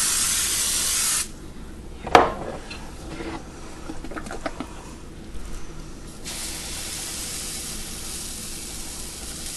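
A sharp burst of spraying hiss for about a second and a half at the start, then a short clack about two seconds in. From about six seconds in, a steady sizzle as apple-pancake batter is poured onto the hot cast-iron griddle.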